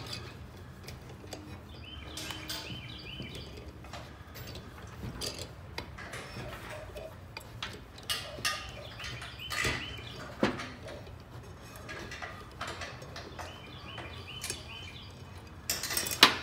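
Metal clicks, taps and scrapes of hand tools on a motorcycle cylinder head as a C-clamp valve spring compressor is worked to free the valve retaining clips, with louder metal clanks near the end. Birds chirp in short repeated phrases in the background.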